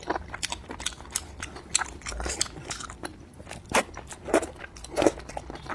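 Close-miked chewing and biting of soft, springy hot pot food, with wet, irregular chews a couple of times a second.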